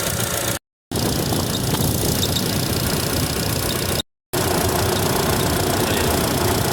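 Radiator cooling fan of a 2014 Chevrolet Tracker running alongside the idling engine, with a faint cricket-like chirp that gets worse when hot and that the owner traces to a failing fan motor. The sound drops out completely twice, briefly, about half a second and four seconds in.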